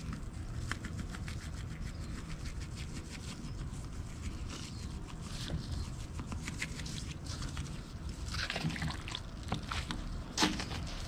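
Gloved hands rubbing and patting seasoning into a raw spatchcocked chicken: soft wet squishing and slapping of the raw skin and meat, with a sharper slap near the end. A steady low rumble runs underneath.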